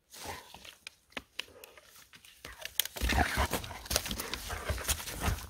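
A German Shepherd moving about on dry pine needles: rustling, crackling steps. They get louder and busier, with dull thuds, from about three seconds in.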